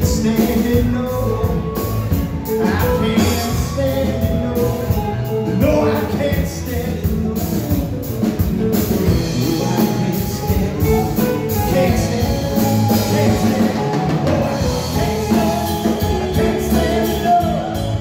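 Live rock band playing: electric guitars over bass and a drum kit, amplified through the PA.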